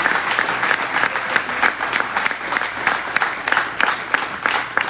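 An audience applauding: many hands clapping at once.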